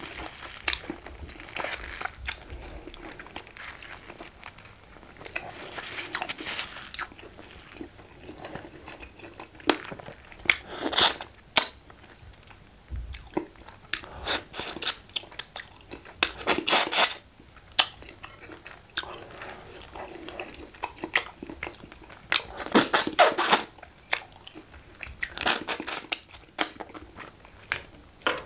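Close-miked eating by hand: chewing, wet lip smacking and finger sucking in repeated bursts, with crunching of catfish head and banga soup. Several louder bursts of clicky smacking come near the middle and toward the end.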